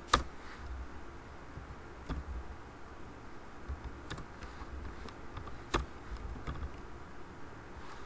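Scattered clicks of a computer keyboard being typed on, a few keystrokes spaced a second or two apart, the sharpest just after the start and again near the end, over a faint low hum.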